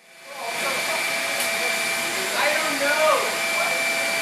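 Hand-cranked bicycle chain drive and spoked bicycle wheel of a model bucket wheel excavator whirring steadily as the crank is turned, with a thin, steady high whine running through it.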